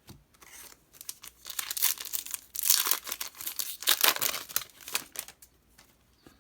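Foil wrapper of a Yu-Gi-Oh! booster pack crinkling and tearing as it is handled. The crackling comes in an irregular run for about five seconds and is loudest past the middle.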